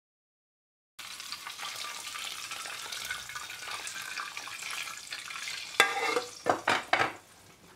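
Hot fat sizzling as it is poured onto a pot of ezogelin lentil soup, starting about a second in and hissing steadily, then a few sharp clanks of metal against the pot near the end.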